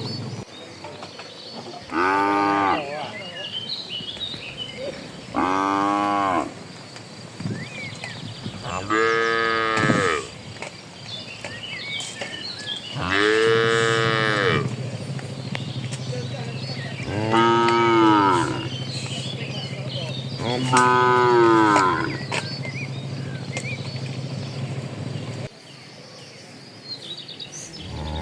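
Cattle mooing: six separate moos, each about a second long, arching up and falling in pitch, a few seconds apart. A steady low hum runs underneath through the middle and later part.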